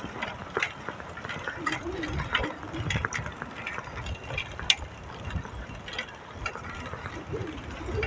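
Old small-wheeled drop-handlebar road bike being ridden over cracked asphalt: irregular clicks and rattles from its drivetrain and frame, with a low wind rumble on the microphone.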